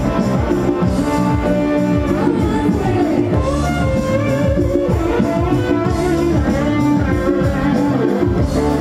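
Live band music led by guitar over a steady beat, with a woman's voice singing an Assamese folk song into a microphone through the stage PA.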